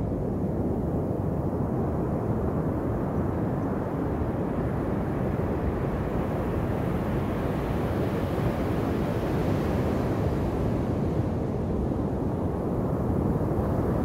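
Ocean surf breaking and washing up the shore, a steady low rush that swells a little about halfway through.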